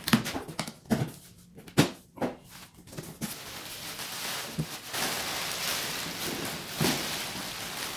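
Hands working inside a cardboard box give a few sharp clicks and knocks. About three seconds in, a steady crinkling rustle of plastic air-pillow packing takes over as it is pulled out of the box.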